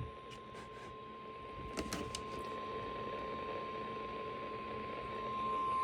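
Weather-radio warning alarm: a single steady 1050 Hz alert tone, the tone sent in a NOAA Weather Radio routine weekly test. It is faint at first and grows louder near the end, with a thump at the start and a couple of clicks about two seconds in.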